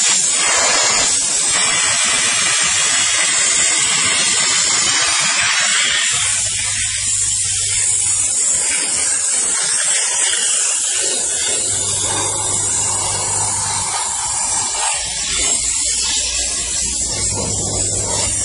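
Steam car wash machine's spray gun jetting steam in a steady, loud hiss. A low hum comes in underneath three times.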